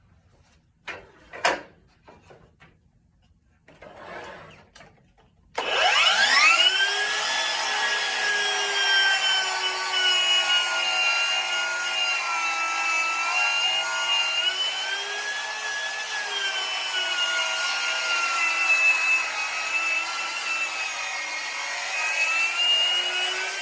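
A few light knocks, then about five and a half seconds in a Ryobi 10-inch miter saw's motor starts with a rising whine and cuts a long hardwood board, its pitch dipping and wavering under load for the rest.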